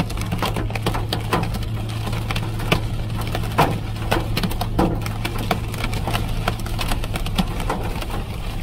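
Hailstones striking the roof, windshield and sides of a Jeep, heard from inside the cab as a dense scatter of irregular sharp knocks over the Jeep's steady low hum as it drives.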